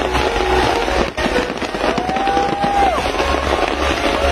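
Large fireworks display in full barrage: dense, continuous crackling over a low rumble, with a few whistles that rise and fall.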